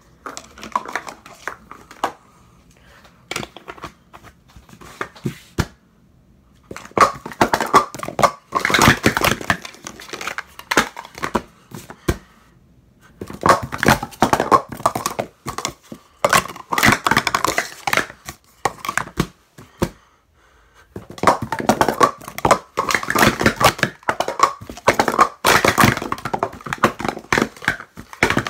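Plastic sport-stacking cups (Speed Stacks) rapidly stacked and unstacked on a stack mat during timed stacking runs: fast, dense clattering and clicking of cups knocking together. A few scattered clicks come first, then three long runs of clatter, split by short pauses about twelve and twenty seconds in.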